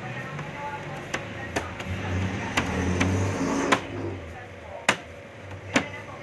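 Dough balls being rounded by hand and set down on a hard worktable, giving about six sharp knocks at irregular intervals.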